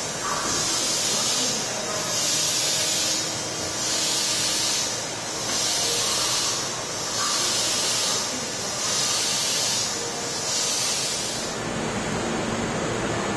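A train's destination roll sign spinning over and over, its torn blind giving a hissing swish about every second and a half over a steady hiss; the swishes stop near the end.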